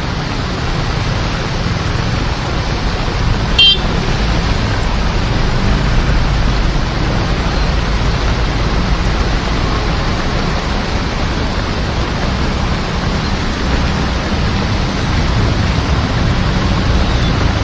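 Heavy rain falling steadily, with a deep low rumble under the hiss. A single short, sharp click-like sound comes about four seconds in.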